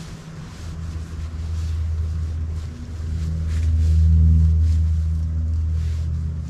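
Low engine hum that grows louder, peaks about four seconds in, and then fades again, like a motor passing by.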